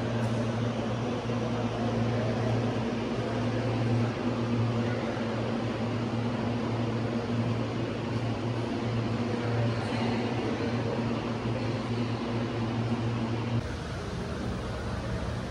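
A steady low machine hum over a background of noise, changing abruptly near the end.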